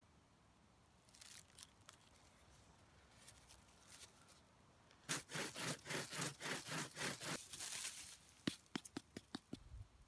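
Faint knife scraping on wood, then a bow drill at work: the wooden spindle grinding in the hearth board with each back-and-forth stroke of the bow, about three strokes a second, the board hot enough to smoke. A few sharp clicks follow near the end.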